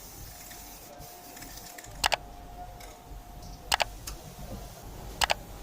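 Three sharp double clicks, evenly spaced about a second and a half apart, over a faint steady hum with a thin high tone.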